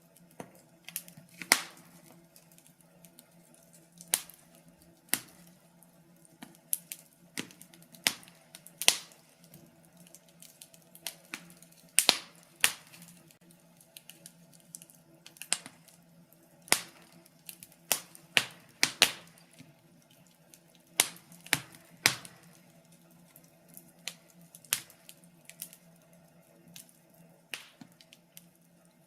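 Wood fire crackling in a fireplace: irregular sharp pops and snaps, several a second at times, a few much louder than the rest, over a faint steady low hum.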